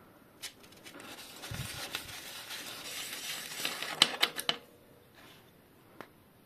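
Metal bottom bracket tool parts handled against a bicycle frame's bottom bracket shell: a scraping rustle for a few seconds with a couple of dull bumps, ending in several sharp metal clicks and clinks about four seconds in.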